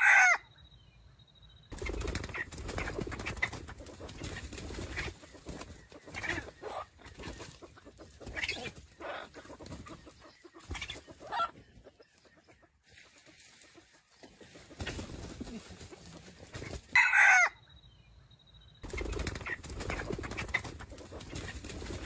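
Wild jungle chickens (junglefowl) calling: a short, loud call sliding down in pitch right at the start and again about seventeen seconds in. Between the two come stretches of clucking and rustling.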